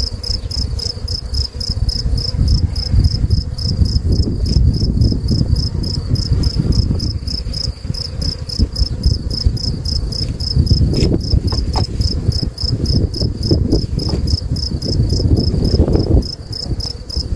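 A cricket chirping in a fast, even pulse, over a louder, uneven low rumble.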